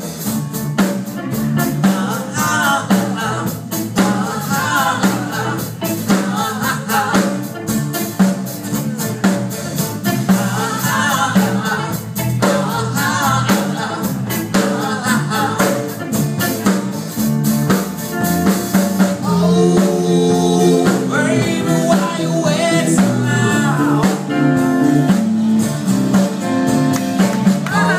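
Live band playing a rock song with drums keeping a steady beat, guitar and a melodic lead line over it.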